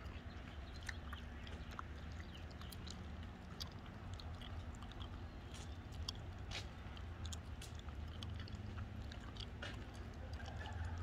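Footsteps on a concrete sidewalk: scattered light taps and clicks over a steady low rumble.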